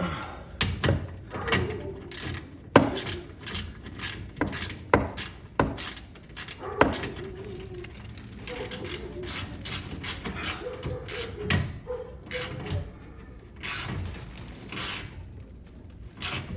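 Irregular metallic clicks and knocks from hand tools and hardware being worked on a garage door's track and rollers during realignment, with a few brief squeaks.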